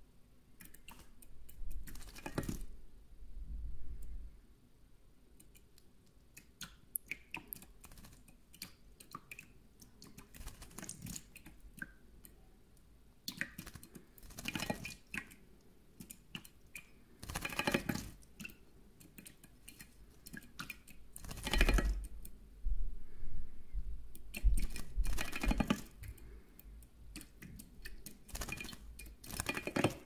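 European goldfinch bathing in a shallow metal dish: bouts of splashing and wing-fluttering, with droplets pattering on the metal, several times a few seconds apart with scattered small splashes between.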